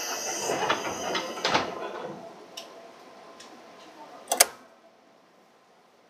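Doors of a stopped 205 series commuter train working: a rush of air with knocks that dies away over the first two seconds, then a loud double knock about four seconds in as the doors shut. The car goes quiet afterwards, with no motor running.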